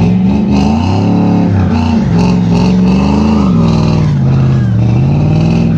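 Pickup truck engine revving, its pitch rising and falling several times.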